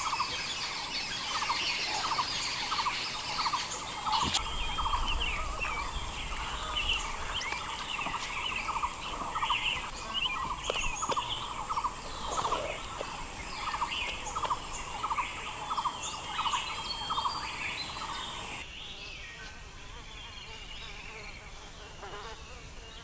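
Forest ambience of insects and birds: a steady high insect buzz and a regular pulsing call, about two to three pulses a second, under scattered bird chirps. The buzz and the pulsing call stop abruptly near the end, leaving the chirps.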